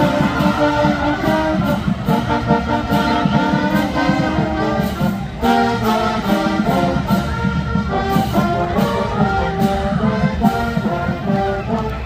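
Brass music with a steady beat, several horn parts playing a tune.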